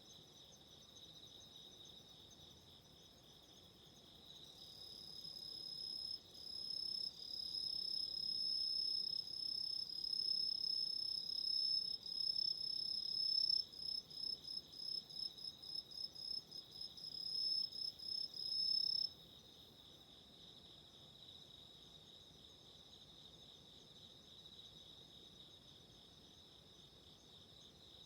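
A steady, high-pitched chorus of autumn insects chirping. About five seconds in, a nearer insect starts a louder, higher, continuous trill, breaks it into a quick run of short pulses, and stops abruptly a little over halfway through.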